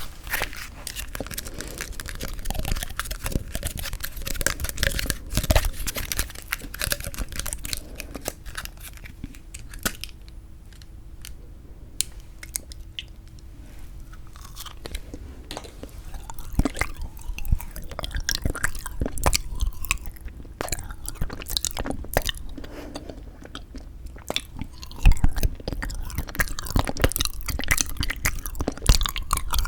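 Frozen sweet red bean jelly (yanggaeng) being bitten and chewed close to the microphone, with crunching and wet mouth clicks. The chewing grows quieter through the middle and louder again near the end.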